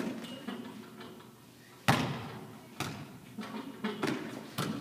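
A tetherball struck back and forth by hand, a series of sharp slaps with the loudest hit about two seconds in, each ringing briefly in a large gym.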